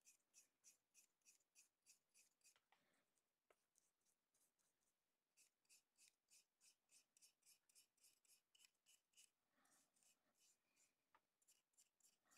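Very faint strokes of a paintbrush laying paint onto a plastic model aircraft, about three strokes a second in steady runs, with a pause of a couple of seconds after the first run.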